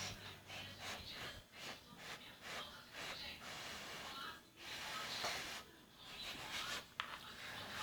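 A toddler's breathing and mouth noises as she chews food, in short rushes of about a second each, with one sharp click near the end.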